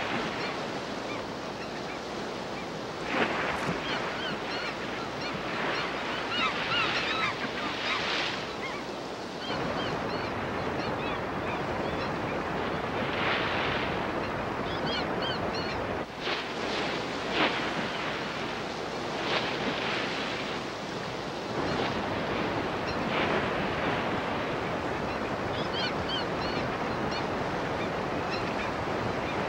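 Steady rush of whitewater in river rapids, with gulls calling now and then over it. The water sound shifts abruptly in level a few times.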